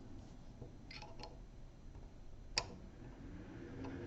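A few light metallic clicks and taps as a disassembled folding knife's blade and handle scales are handled on a work mat, the sharpest about two and a half seconds in.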